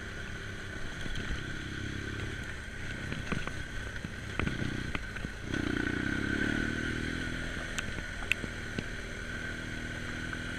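BMW GS adventure motorcycle's twin-cylinder engine running under way on a rough dirt lane, heard on board, with scattered clattering knocks as the bike goes over the track. The engine gets louder about halfway through.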